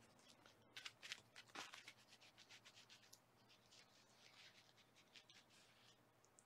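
Near silence, with faint, scattered scratching and rustling, busiest about a second in.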